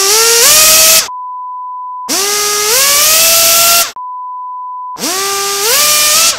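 A power tool's motor speeding up, its pitch climbing in steps over a loud hiss, three times over. Between the runs come two steady, one-second, pure beep tones.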